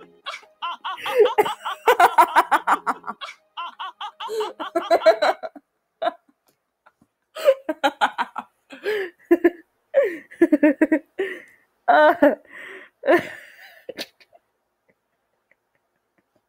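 Hard laughing in fast, repeated 'ha-ha' pulses, coming in several fits, with a gap of about two seconds in the middle; it stops about two seconds before the end.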